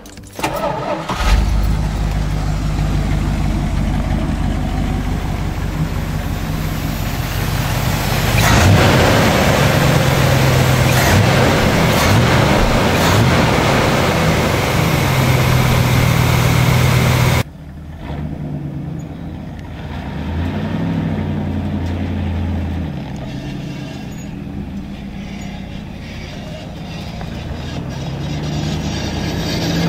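A 1986 Dodge Power Ram's 318 V8 starting about a second in and running, getting louder about a third of the way through. After a sudden break the truck is heard driving, its engine rising and falling and building again near the end.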